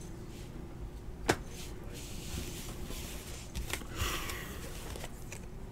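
Trading cards being handled on a table: one sharp tap about a second in, then a few light ticks and soft rustling of card stock.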